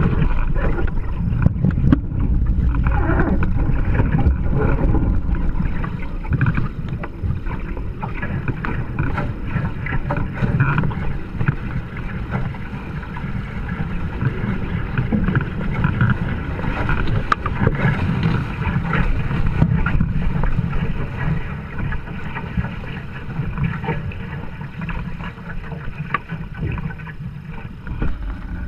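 Wind buffeting the microphone and water rushing along the hulls of a Hobie Tiger Formula 18 catamaran under sail, a continuous rough noise that is louder in the first few seconds.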